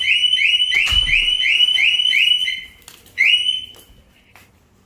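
Car's electronic warning beeps: a fast run of short rising beeps, about three a second, as the car is tried without its key inside. The beeping stops about two and a half seconds in, with one more beep shortly after and a low thump about a second in.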